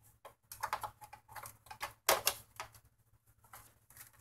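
Plastic back cover of a flat-screen LED TV being handled and set into place: a quick series of short plastic clacks and knocks, the loudest about two seconds in.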